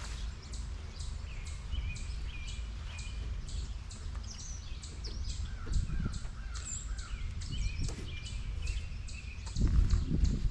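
Wind buffeting the microphone with a steady low rumble, rising in a stronger gust near the end, while birds call and chirp. A faint high pulsing repeats about three times a second throughout.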